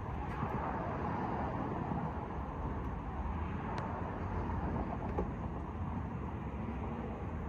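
Steady low rumble of outdoor background noise, vehicle-like, with no distinct event except a faint click about four seconds in.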